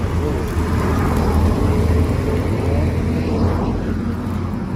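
A steady low rumble with no sharp bangs, with children's voices faint behind it.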